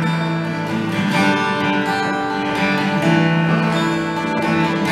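Acoustic guitar strumming slow chords, each strum left to ring before the next one, a new strum every second or two.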